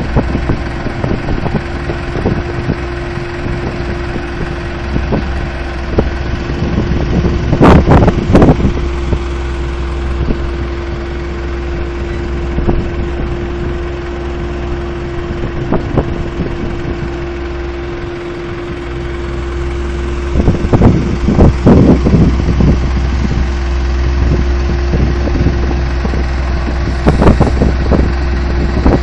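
Diesel engines of a Valtra N142 tractor and a Hitachi EX130 excavator running steadily, with a constant hum and a held drone. A few short loud bursts of noise break in, about a quarter of the way in, twice about two-thirds through, and near the end.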